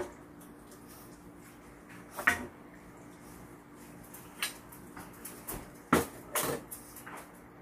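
Metal tongs and a ladle clinking against a frying pan and a ceramic bowl as noodles and broth are served: a handful of sharp clinks a second or two apart, two of them close together near the end, over a faint steady hum.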